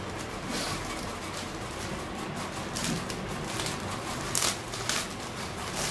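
Plastic courier mailer bag rustling and crinkling as it is handled and opened, with a few sharper crackles, the loudest a little past the middle.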